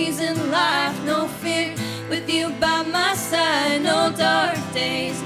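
Live acoustic band music: guitar accompaniment with a wavering melody line carried over it.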